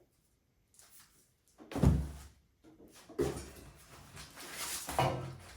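Kit parts being handled and set down on a bench: one heavy thunk about two seconds in, then a few seconds of sliding and shuffling with smaller knocks.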